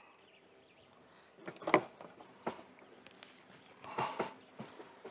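Adjustable wrench clicking and knocking against the metal fittings of a propane solenoid as it is fitted into the gas line: a few sharp knocks, the loudest about a second and a half in, and a short cluster around four seconds in.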